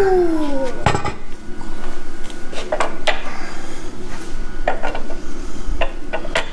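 Sharp metal clinks and knocks as camshafts are worked loose by hand from the cylinder head of a Volvo T6 engine being stripped down. There are several separate knocks, and a short squeal that falls in pitch in the first second.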